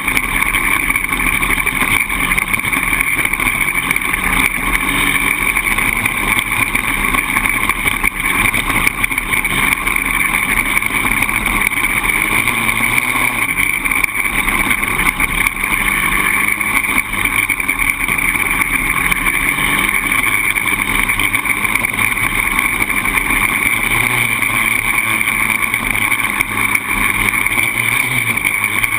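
Polaris Outlaw 525 quad's single-cylinder four-stroke engine running steadily while the quad is ridden, a loud continuous engine note with no breaks.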